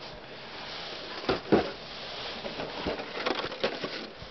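Cardboard model-kit boxes being handled and shifted inside a cardboard shipping carton, with rustling and a few knocks. The loudest knocks come about a second and a half in, and a flurry of lighter knocks and scrapes follows near the end.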